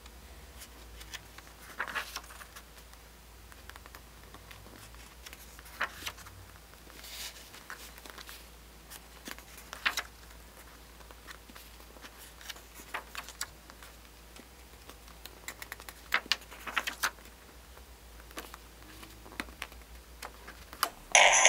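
Paper pages of a printed zine being turned and handled: scattered soft rustles, flicks and taps of paper and fingertips. Near the end, loud music starts from a small sound module with a speaker built into one page.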